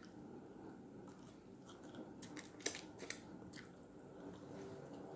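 A person chewing a big mouthful of baked turkey wing, faint, with a run of short wet mouth clicks and smacks a little past the middle.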